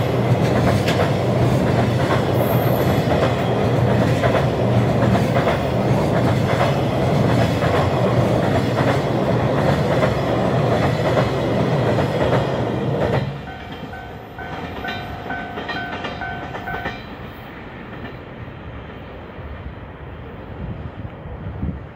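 Container flatcars of a freight train rolling past: a steady rumble with rapid clickety-clack over the rail joints, which drops away suddenly about thirteen seconds in as the last wagon passes. A few seconds later a level-crossing warning bell rings in a fast, repeating two-tone pattern, then stops.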